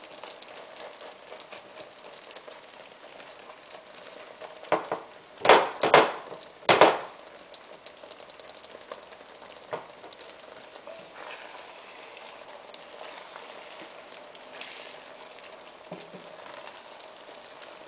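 Thick eggplant-and-kashk sauce simmering and bubbling in a frying pan while a spatula presses and squishes the eggplants down. About five to seven seconds in, there are a few loud knocks as the spatula works against the pan.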